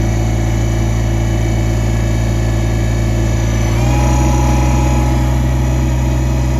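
Kubota BX24 compact tractor's three-cylinder diesel running steadily. About four seconds in, its speed steps up slightly and a steady whine joins in.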